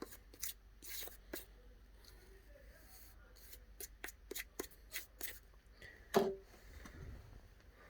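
Irregular small clicks and taps of tools and phone parts being handled on a work surface, with one louder knock about six seconds in.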